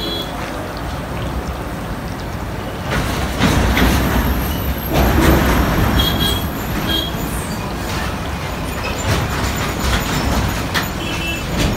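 Street traffic noise, with a heavy vehicle going past about three seconds in and louder for a few seconds. Under it, the steady sizzle of fish pakoras deep-frying in oil in an iron kadai.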